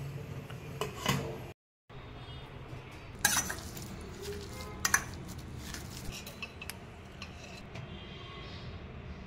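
Metal potato masher clinking and scraping against a hammered steel bowl while mashing boiled potatoes, with a scatter of light clicks and two sharp knocks about three and five seconds in.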